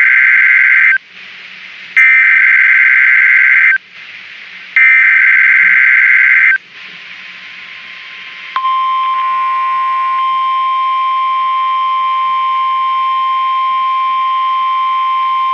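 NOAA Weather Radio Emergency Alert System signal: the SAME digital header, sent as three bursts of warbling two-pitch data tones of about two seconds each with about a second between them. The first burst is already under way at the start. From about 8.5 seconds in comes the steady, loud 1050 Hz warning alarm tone that announces the alert, here a test Tornado Watch.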